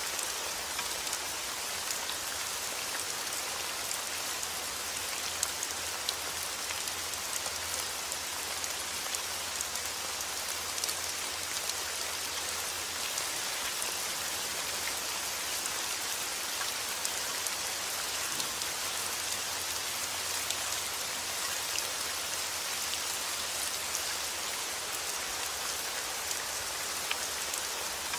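Heavy rain falling steadily outdoors: a dense, even hiss of rain with countless small drop ticks on surfaces.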